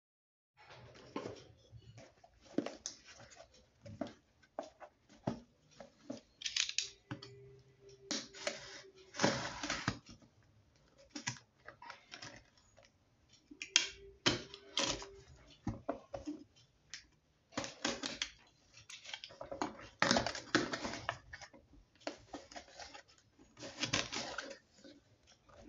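A utility knife slitting the packing tape on a cardboard box, then tape tearing and the cardboard flaps and box being handled: an uneven run of scrapes, rasps and clicks.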